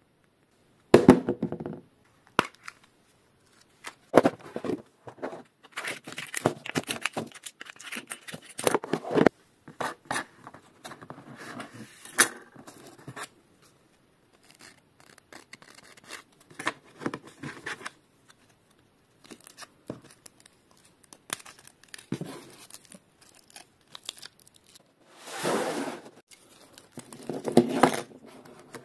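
Bicycle inner tube patch kit being unpacked by hand: its packaging torn open and crinkled, with many short sharp clicks and rustles as the sandpaper, glue tube and patches are handled. Two longer rustling bursts come near the end.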